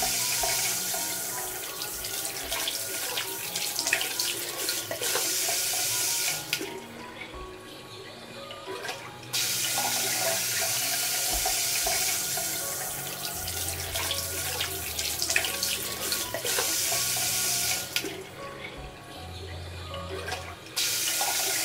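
Water running steadily from a washbasin's pull-out shower-head faucet into the sink, with background music underneath. The rush of water drops away twice for a few seconds.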